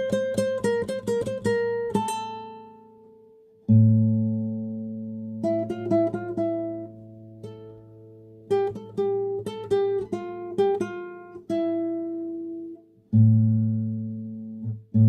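Solo classical guitar playing a slow piece. Quick repeated plucked notes come first, then a deep bass note rings under a slow picked melody, with a second bass note struck near the end.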